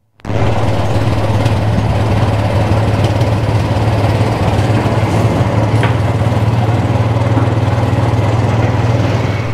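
Engine of a moving road vehicle running steadily at cruising speed, a loud low hum with road and rushing-air noise over it. It starts abruptly just after the beginning.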